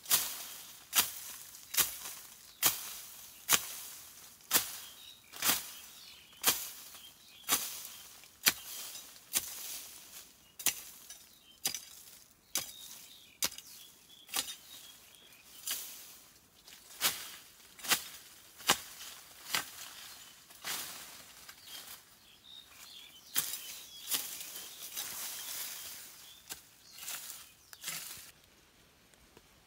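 Wood being chopped with a blade: a steady run of sharp knocks, about one blow a second, with rustling among the blows near the end before they stop.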